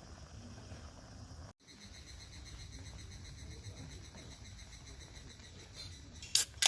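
Crickets chirping steadily in a high, finely pulsing trill, starting after a brief cut-out. Near the end come two short, loud, sharp noises.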